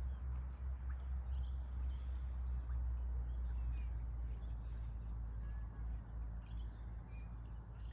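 Small birds chirping and twittering in short scattered calls over a steady low rumble.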